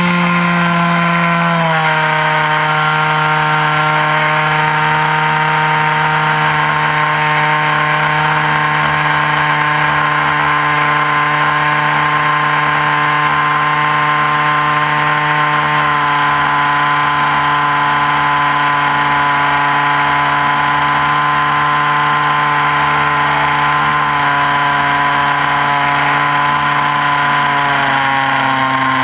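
ASP61 two-stroke glow model-aircraft engine running at high revs, heard close up. It holds a steady buzzing note that drops a step in pitch about two seconds in and again near the end.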